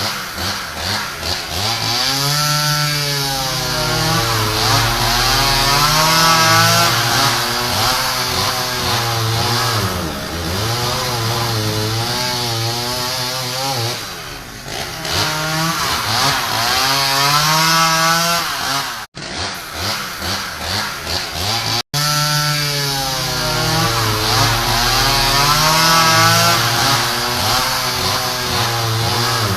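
Angle grinder running with a chainsaw-like sound, its pitch rising and falling again and again. The sound briefly cuts out twice, about two-thirds of the way through.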